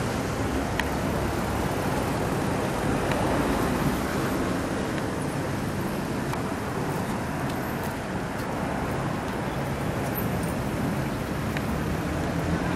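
Steady city traffic noise: a continuous even rumble of road traffic with no single vehicle standing out.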